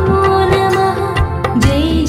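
Telugu devotional song to Hanuman: a long held melody note over a steady drum beat, with a new note sliding in near the end.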